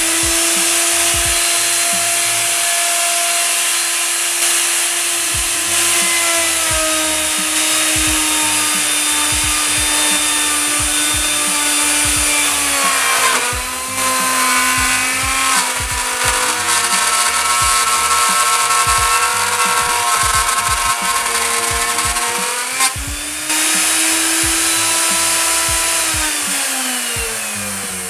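Router mounted in a benchtop router table running at full speed with a steady high whine. Its pitch drops about halfway through as the bit cuts into the board fed along the fence, rises again when the cut ends, and the motor winds down near the end.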